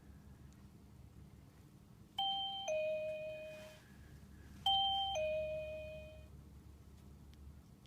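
REVEX X830 wireless door chime receiver sounding a two-note ding-dong twice, a higher note stepping down to a lower one, the second chime about two and a half seconds after the first.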